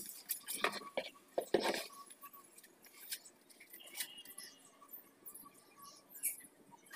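Scattered light clicks and taps from hands and a flat wooden tool working a small clay figure, busiest in the first two seconds and sparser after.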